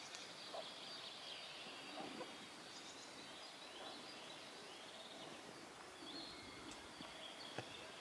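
Quiet forest ambience: birds singing faintly and high over a steady background hiss, with a few light clicks.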